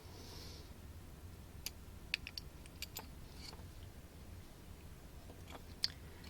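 Scattered light clicks and taps in a few small clusters, from a circuit board and small parts being handled, over a faint steady low hum.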